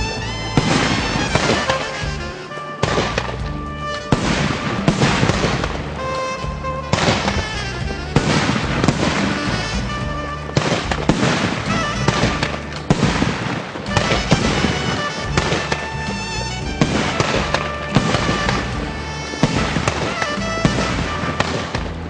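Fireworks going off in a rapid, continuous series of bangs and crackles, with background music playing throughout.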